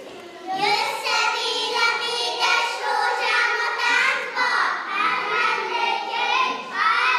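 A group of young children singing together, starting about half a second in.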